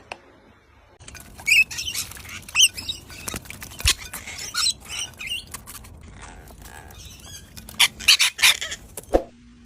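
Pet parrot giving short, high chirps and squawks, with sharp clicking sounds among them, thickest near the end.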